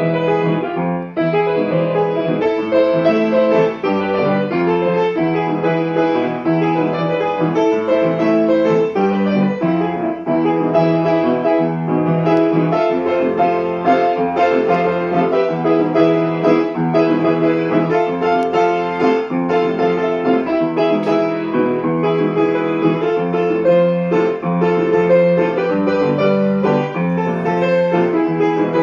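Instrumental piano music, a continuous flowing melody with no singing.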